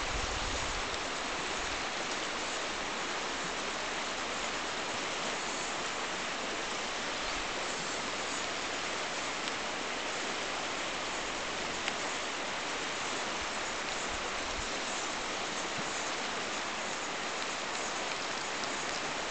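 Shallow river water rushing over a stony bed, a steady hiss of flowing water. A single faint click about twelve seconds in.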